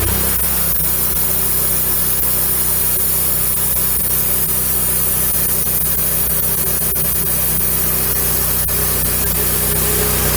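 Wood-Mizer LX150 portable bandsaw mill running steadily, its engine under load as the band blade cuts a slab off a pine cant.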